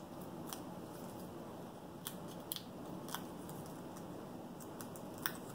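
Faint handling of paper as the small backing papers are peeled off foam adhesive dimensionals on a cardstock piece: a few scattered sharp clicks and crinkles.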